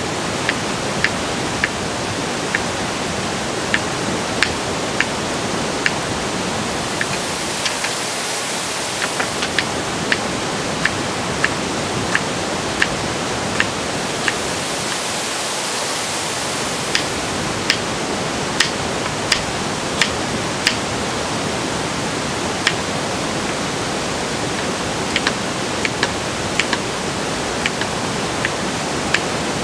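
A kitchen knife slicing vegetables on a wooden cutting board: short sharp taps at an even pace, about one and a half a second, with a couple of brief pauses, over a steady rushing hiss.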